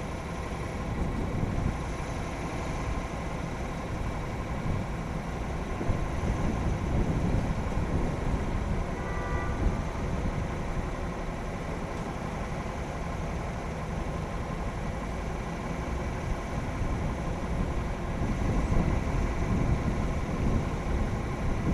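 Wind buffeting an open microphone with a steady low rumble, over the wash of choppy sea against a seawall. A brief faint high chirp about nine seconds in.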